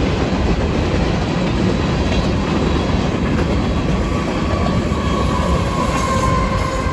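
Freight train of covered grain hopper cars rolling past at close range: a loud, steady rush of wheel and car noise. A steady high tone grows in from about four seconds in and is strongest near the end.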